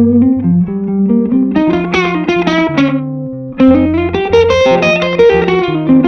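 Electric guitar playing a melodic lead line of single notes and short phrases over a steady bass line.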